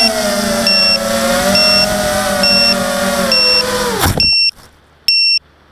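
Motors and propellers of a ZMR 250 mini quadcopter whining in flight, the pitch wavering, then spinning down steeply about four seconds in as it lands. A short high beep repeats about once a second throughout and rings out clearly once the motors have stopped.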